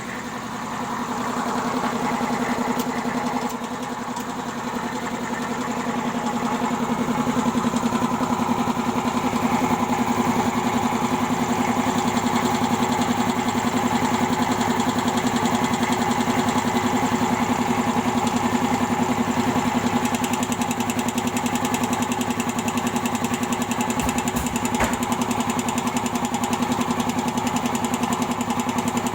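1.5 hp air compressor running on its newly rewound electric motor, under test, with a steady hum and rapid mechanical beat. It grows louder over the first several seconds, then runs steadily.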